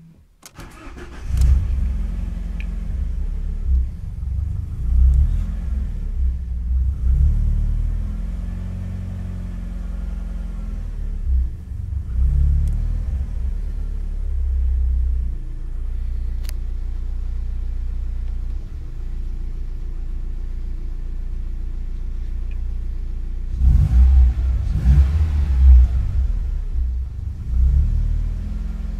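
Alfa Romeo 156 1.6 Twin Spark four-cylinder engine starting about a second in, then idling unevenly. The idle speed keeps swelling and sagging, the hunting idle that the owner has not cured despite replacing nearly every part short of the ECU.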